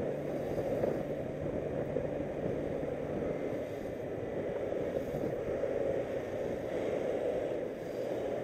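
Motorcycle riding through slow traffic: steady wind rush on the microphone with the bike's engine running underneath, its low drone fading about three seconds in and coming back near the end.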